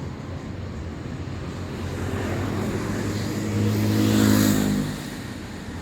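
Road traffic noise, with a motor vehicle passing close by: its engine hum and tyre noise build to a peak about four seconds in, then fade.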